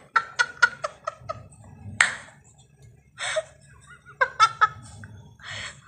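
A woman laughing in short, breathy bursts: a quick run of laugh pulses at first, then scattered bouts of laughter with pauses between them.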